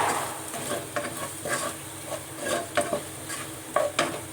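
A spatula stirring onions frying in oil in a pan, with irregular scrapes and taps against the pan over a steady sizzle.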